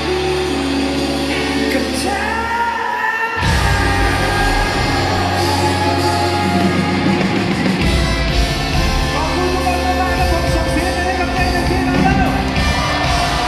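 Live band playing a pop-rock song with singing, with electric guitars, horns and drums. The bass drops out briefly about three seconds in, then the full band with drums comes back in louder.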